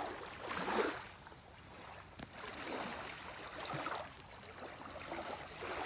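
Shallow water sloshing and lapping at the shoreline, in soft swells about once a second.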